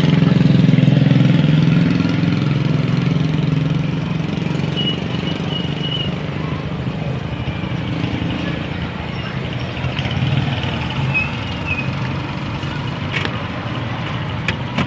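A motor vehicle engine running steadily nearby, loudest in the first couple of seconds and then easing to a lower, even rumble. A couple of short clicks come near the end.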